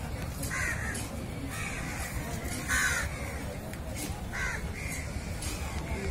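Crows cawing repeatedly, a short harsh call about once a second, over a low background rumble.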